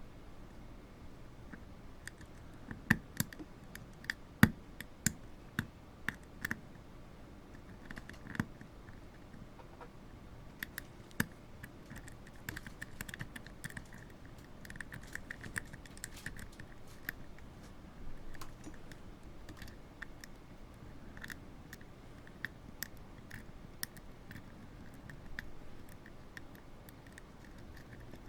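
Lock pick and tension wrench working inside a five-pin brass padlock during single-pin picking: scattered small clicks and scratches, with a few sharper clicks in the first several seconds and a run of quicker, fainter ticking around the middle.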